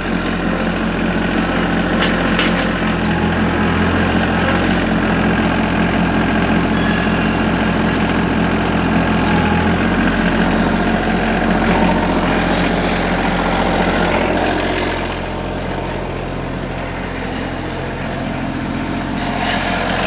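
TYM T25 compact tractor's three-cylinder diesel engine running steadily while the front loader's grapple lifts and carries a log. The engine sound drops a little about three-quarters of the way through.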